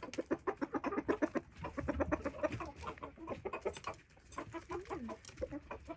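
Backyard chickens clucking: a quick run of short clucks for the first few seconds, then scattered clucks and a longer falling call about five seconds in.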